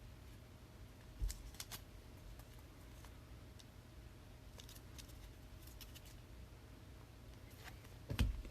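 Trading cards being handled and sorted: scattered faint clicks and rustles, with a louder knock near the end, over a faint steady hum.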